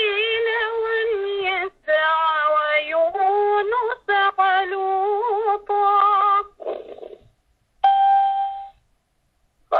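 A woman's voice chanting Arabic in melodic Quran recitation: long held phrases with wavering ornaments, broken by short pauses, and one steady held note near the end.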